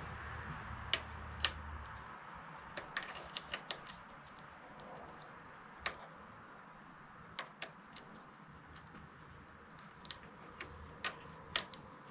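Irregular sharp clicks and light taps of small metal and hard-plastic Quad Lock handlebar-mount parts being handled and fitted together, a few at a time with short gaps between them.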